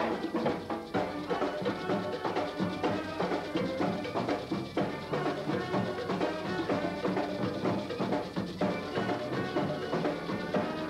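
Instrumental music with percussion keeping a quick, even beat.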